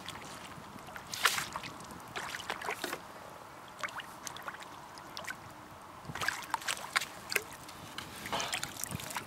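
Hooked fish splashing at the surface as it is drawn in, then a landing net scooped through the water: a string of irregular splashes and sloshes, the loudest about a second in.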